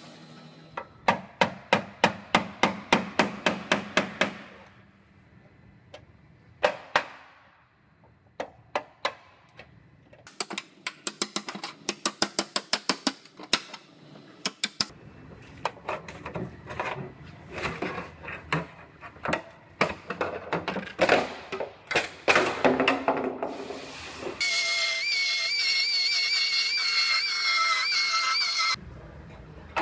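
Hammer striking the steel rocker and pillar metal of a car body in quick runs of sharp, ringing blows, about four a second, with pauses between. Near the end a power tool runs steadily for about four seconds with a high, wavering whine.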